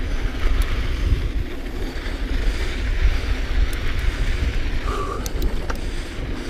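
An Intense Tracer mountain bike rolling down a dusty dirt trail. There is a steady low rumble of wind buffeting the action camera's microphone, mixed with tyre noise on the dirt, and a brief squeak about five seconds in.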